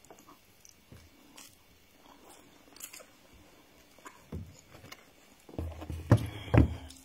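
Close-range chewing and mouth sounds of a person eating rice and stew by hand, with small clicks and crunches. Near the end come several louder knocks and rustles.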